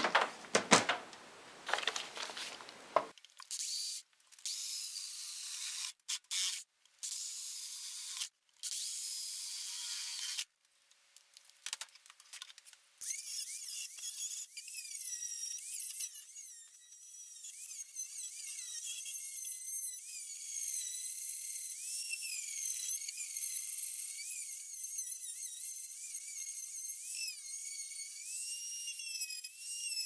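Dremel rotary tool grinding, enlarging the torch-lead hole in the welder's case. It starts and stops several times in the first ten seconds, then runs on with a high whine that wavers up and down in pitch as the bit bears on the metal.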